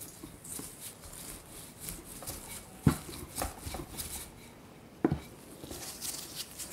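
Wooden rolling pin rolling pie dough out on a bamboo cutting board: soft rolling and scuffing, with two sharp wooden knocks of the pin against the board, about three seconds in and about five seconds in.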